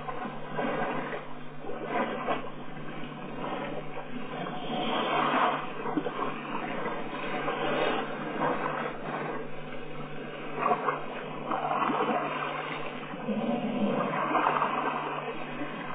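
Elephants wading and drinking in a shallow waterhole: an uneven, rough wash of splashing and sloshing water that swells and fades every few seconds, over a steady low hum.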